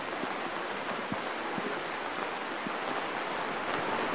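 Steady rain falling on wet pavement: an even hiss with faint scattered drop ticks.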